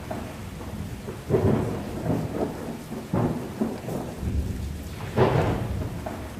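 Storm sound effect: steady rain with three rumbling surges of thunder, about two seconds apart.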